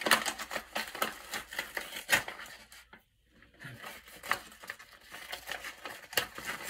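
Paper mailing envelope being torn open and handled: irregular tearing, rustling and crinkling of paper, with a short pause about three seconds in.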